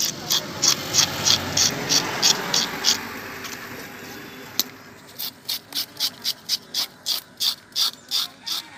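Spiked metal fish scaler scraping scales off a fish in quick, even strokes, about three a second. The strokes stop for about two seconds in the middle, then start again a little faster.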